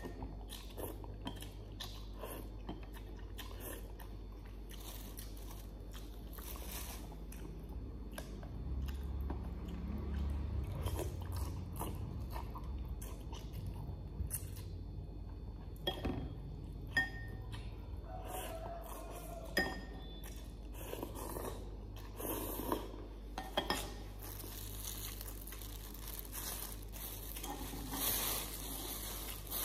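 A person chewing noodles up close, with short clicks of chopsticks and, near the end, plastic bags crinkling as they are handled.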